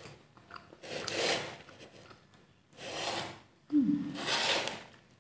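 A person breathing noisily out through the nose while eating: three breathy puffs, the last starting with a short low hum.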